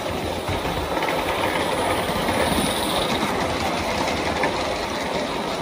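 G scale freight train hauled by a live steam 0-4-0 locomotive running around the track: a steady rolling noise of wheels on rail with light clicking, getting louder as the cars pass close by.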